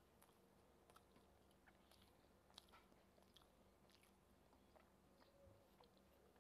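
Faint chewing of rice and kidney beans eaten by hand, with scattered small mouth clicks over a low steady hum.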